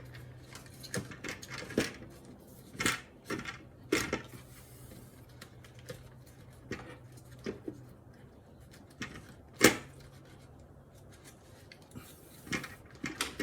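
Scattered metallic clinks and knocks of hand tools and engine parts being handled, with one sharper knock near the ten-second mark, over a faint steady low hum.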